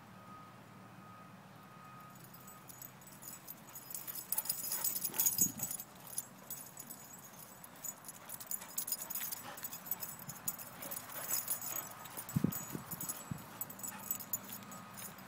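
Vizslas running and playing on sand, with collar tags jingling and paws scuffing in quick, irregular clicks, plus a couple of dull thumps, the loudest about twelve seconds in.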